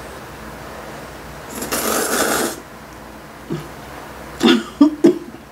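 Person slurping a mouthful of spicy stir-fried instant noodles in one loud, rushing draw lasting about a second, starting about a second and a half in. Near the end come a few short chewing and mouth sounds.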